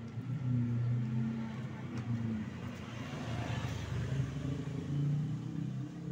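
Motor vehicle engine running, its low drone shifting slightly in pitch, with a rush of broader noise about three to four seconds in, as of traffic passing.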